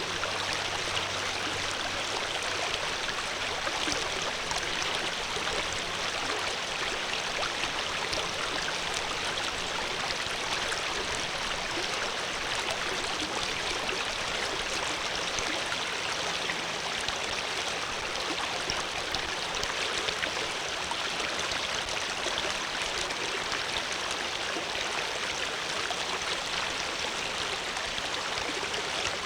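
Water flowing steadily in a stream, a constant rushing with fine splashing detail.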